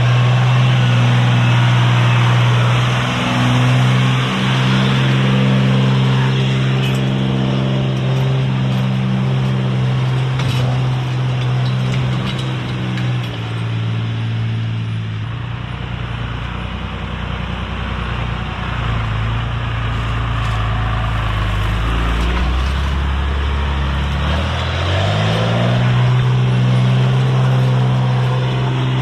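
Pickup truck engine held at high revs while the truck is getting stuck off-road. The revs drop about halfway through, then climb back up near the end.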